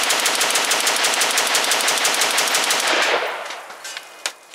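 Hill & Mac Gunworks CETME-L roller-delayed 5.56 NATO rifle firing a fast, unbroken string of semi-automatic shots from a full magazine of Wolf steel-case ammunition. The string stops about three seconds in, and a single sharp click follows near the end.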